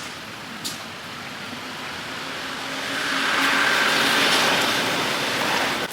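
A motor vehicle going by, its road noise building up over a couple of seconds to a steady loud hiss with a faint hum under it, then cutting off suddenly at the end.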